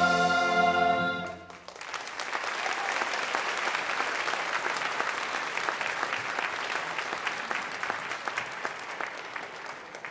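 The final held chord of a musical number from the pit orchestra and singing cast cuts off about a second in. Audience applause follows and fades away near the end.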